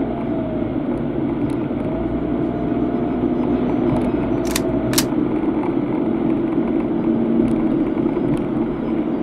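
Steady engine and road noise of a car driving, heard from inside the cabin, with two sharp clicks about half a second apart near the middle.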